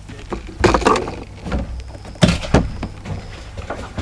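Several sharp knocks and thuds in a fishing boat, the loudest a little past halfway, over a low steady hum.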